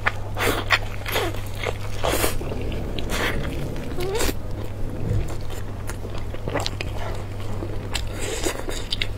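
Close-miked wet biting and chewing of soft braised meat, with smacking and sucking sounds, over a steady low hum.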